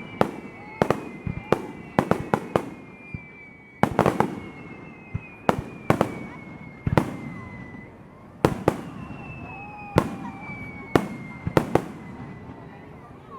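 Japanese starmine fireworks barrage: a rapid run of sharp shell bursts, a dozen or more, with long high whistles sliding slowly down in pitch between them.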